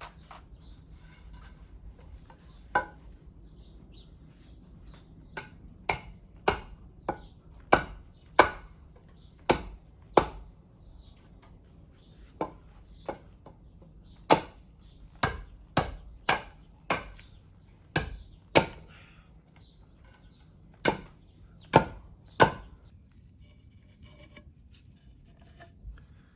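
An axe chopping scrap wood: about twenty sharp, separate strikes at an irregular, unhurried pace, stopping a few seconds before the end. A steady faint high insect chirring runs underneath.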